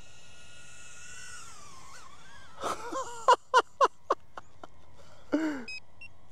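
DJI Neo 2 drone's propellers whining steadily, the pitch dropping as it slows after a fast sport-mode run. A man then laughs in several short breathy bursts and gives a falling sigh. Near the end comes a short electronic beep as the flight mode switches to normal mode.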